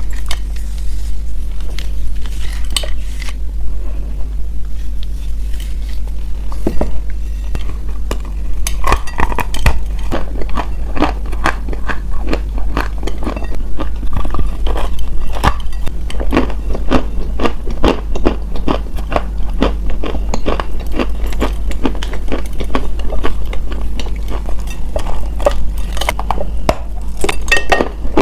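Close-miked biting and crunching of edible chalk or clay. The crackles are sparse at first and turn into a dense, rapid run of crunches from about eight seconds in, over a steady low hum.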